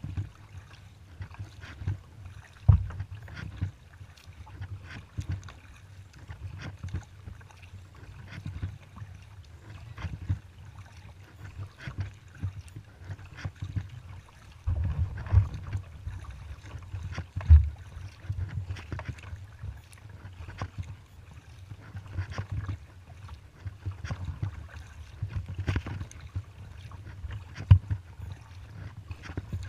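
Kayak paddling: irregular splashes and drips as the paddle blades dip into the water, with a low rumble of wind on the microphone.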